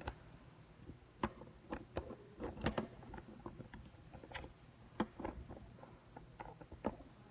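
Irregular light clicks and taps with a few sharper knocks, over a faint steady low hum.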